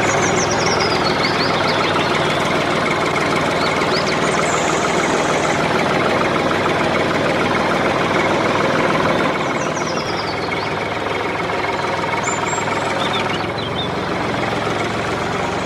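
Steady, loud engine-like machine running noise with a few bird chirps over it.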